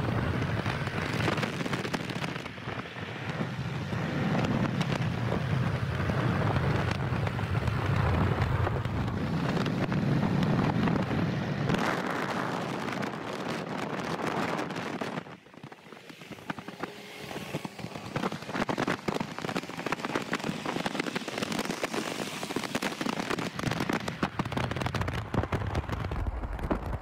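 A car driving at speed, with wind and road noise rushing and crackling on the phone's microphone. The rush eases about halfway through and turns more crackly.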